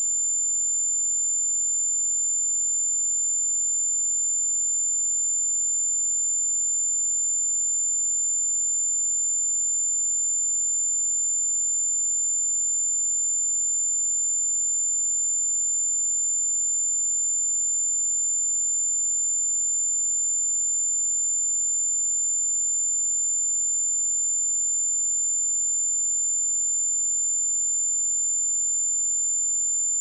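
A pure 7158 Hz sine-wave test tone: one steady, high-pitched whistle-like pitch, held unchanged at constant level.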